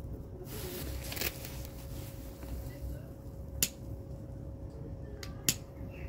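Propane melting furnace running with a steady low rumble and hum, with a short hiss about a second in and two sharp clicks about two seconds apart.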